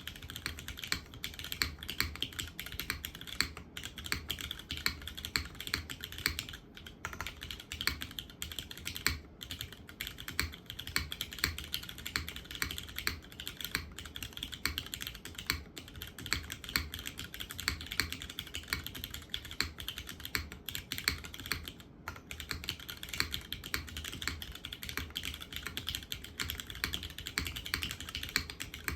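Steady, fast typing on a custom 65% mechanical keyboard: a polycarbonate-case Drift Mechanics Forever65 with gasket-mounted full aluminium plate, GMK keycaps and broken-in, lubed and filmed linear Cherry MX Hyperglide Black switches. The keystrokes come in a dense run of clicks with a few short pauses.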